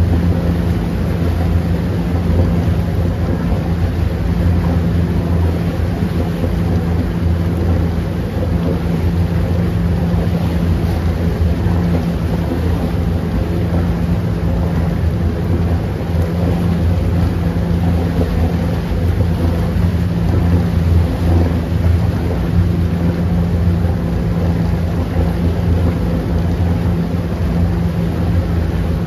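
Motorboat engine running steadily under way, a low drone, over the rushing and churning of the propeller wash in its wake.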